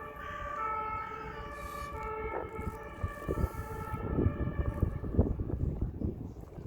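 Emergency vehicle's siren wailing in the distance, switching back and forth between pitches and fading out about four seconds in. Irregular low thumps follow in the second half.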